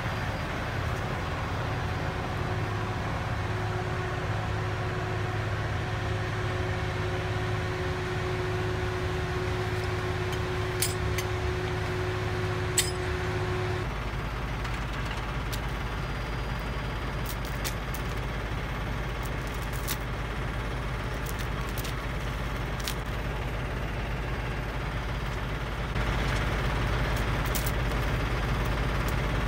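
Heavy diesel engine of a loaded log truck idling steadily, with a steady whine over the first half and a few sharp clicks and clinks later on.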